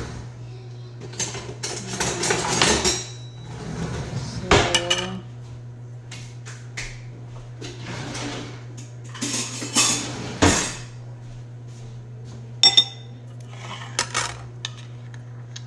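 Kitchenware being handled at the stove: a metal pot, its lid and cans clatter and clink on and off, with a few sharp metallic clicks, the loudest a quick double click near the end, over a steady low hum.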